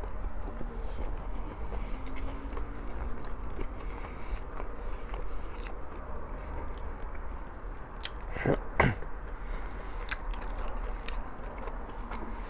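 A person chewing food up close, with soft wet mouth clicks over a low steady hum. About eight and a half seconds in come two louder mouth sounds in quick succession.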